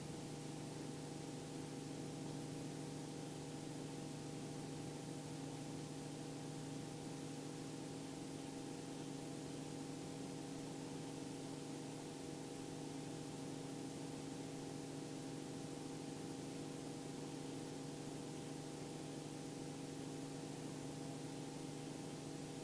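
Steady drone of a Robinson R44 II helicopter's engine and rotors, an even multi-tone hum under constant hiss.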